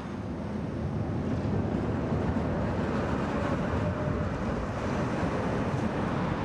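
Tatra T5C5 tram rolling past, its running rumble rising over the first two seconds and then holding steady.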